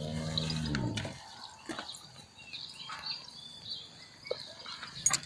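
A farm animal's call, about a second long and falling slightly in pitch, followed by faint scattered clicks and rustles.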